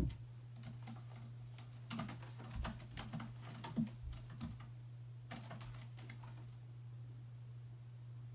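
Irregular light clicks and taps of a cat's claws and paws on a cat tower as she spins around its post chasing her tail, dying away about six seconds in, over a steady low hum.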